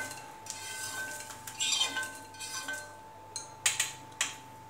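Roasted garlic cloves being scraped off a hot iron tawa with a metal utensil and swept into a glass bowl: a few short scrapes, then some sharp taps of metal on the pan near the end.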